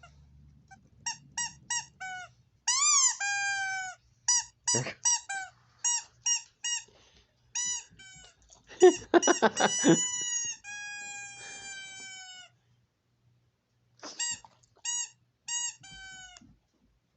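Squeaky noise played back through a speaker: runs of short, high squeaks, some drawn out and falling in pitch, with a dense flurry in the middle and a short pause before a last few squeaks.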